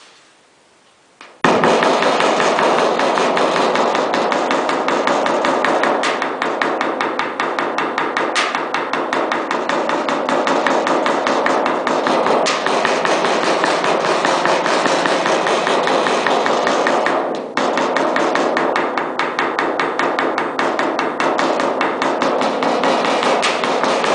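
Rapid, continuous hammering or tapping on metal, many strokes a second, starting suddenly about a second in, with a brief pause near the end.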